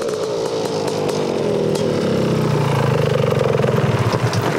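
Honda ATC 250R three-wheeler's two-stroke single-cylinder engine running as the machine rides up. It gets louder as it nears, and its pitch drops as the rider backs off the throttle about halfway through. The owner judges that it runs pretty good but is not jetted properly.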